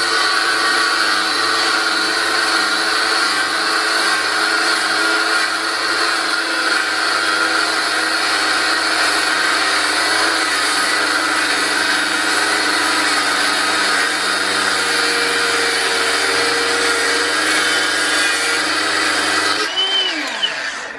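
Angle grinder cutting through old trolleybus brake rods: a steady high whine and grinding hiss under load. It is released about a second before the end and spins down, its pitch falling.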